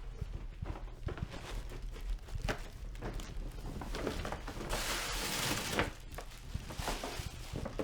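A gift being unwrapped: light handling noises and rustling of the wrapping, with one longer, louder rustle about five seconds in.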